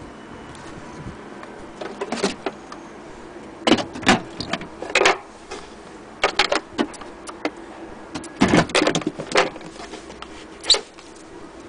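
Clicks, knocks and light rattles from a wooden case and its small metal latch clasps being handled, in several short clusters, the loudest about four seconds and eight and a half seconds in.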